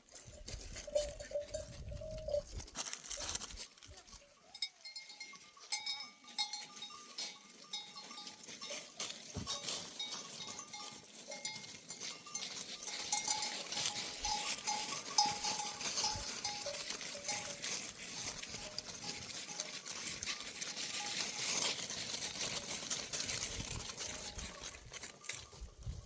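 Neck bells on a flock of sheep clinking and jangling almost continuously, with a short animal call near the start.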